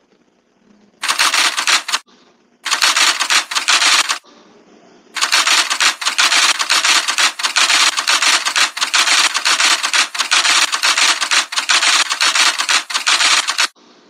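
Typewriter sound effect: rapid key clacks in three runs, a short one about a second in, another around three seconds, then a long unbroken run from about five seconds until just before the end, as the lines of an on-screen text are typed out.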